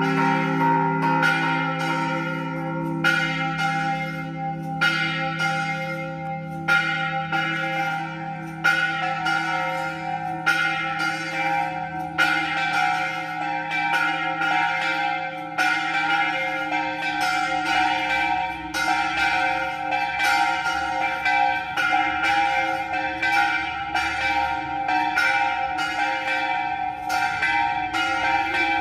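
Church bells ringing a fast peal: repeated strikes, about two to three a second, over the lingering hum of the bells.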